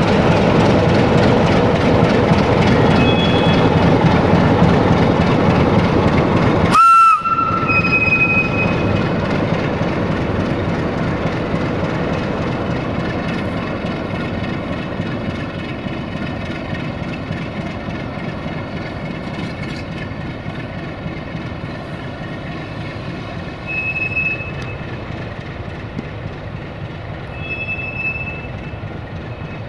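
Diesel train at a station: loud engine and rail noise, cut off abruptly about seven seconds in with a brief high tone. A steadier engine hum follows and slowly fades, with two short high squeals near the end.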